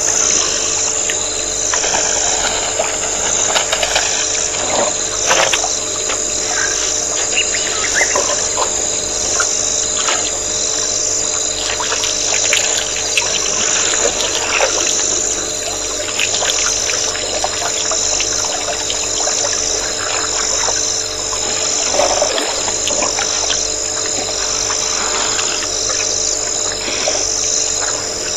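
Waterhole ambience picked up by a webcam microphone: a steady chorus of calling insects, pulsing regularly a little more than once a second over a constant hum, with scattered faint short knocks.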